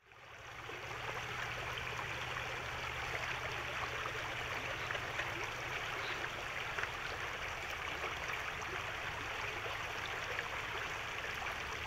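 River water flowing steadily over rocks, an even rushing babble, fading in over the first second.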